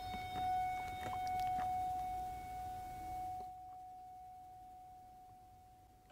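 A handbell struck once, its clear tone ringing on and slowly dying away, tolled for each name read in a remembrance of the dead. A few faint taps sound in the first couple of seconds.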